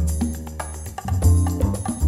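Background music with a steady beat: percussion hits over a deep bass line.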